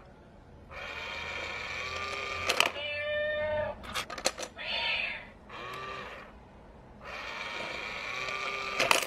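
Battery-powered tabby-cat coin bank playing its recorded meowing sound in several long calls as the cat figure pops out and its paw snatches the coin, with sharp clicks of the mechanism and lid about two and a half seconds in, about four seconds in, and near the end.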